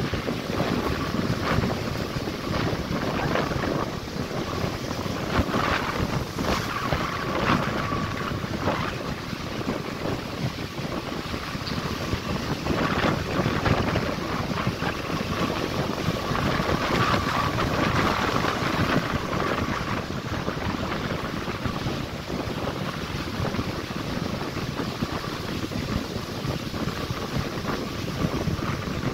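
Wind gusting on the microphone over the steady wash of breaking surf.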